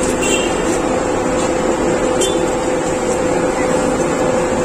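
Busy street ambience: a steady wash of traffic noise under a constant hum, with faint voices in the background.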